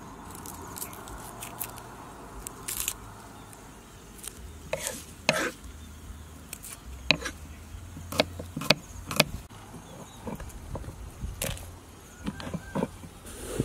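Garlic being peeled and trimmed by hand with a small paring knife over a wooden cutting board: a scattering of sharp clicks and taps of blade, papery skins and cloves against the wood, the loudest coming in a cluster about halfway through. A low steady rumble runs underneath.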